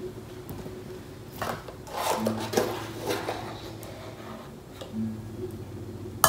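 Cardboard baking soda box being handled and opened, with a metal teaspoon scraping inside it as a level teaspoon is measured out. It comes as a few short rustles and scrapes in the middle, with a sharp click at the very end.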